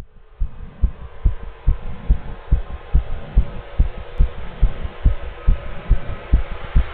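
Recorded heartbeat played as the artwork's soundtrack: low, regular thumps about two and a half a second over a steady hiss, starting abruptly.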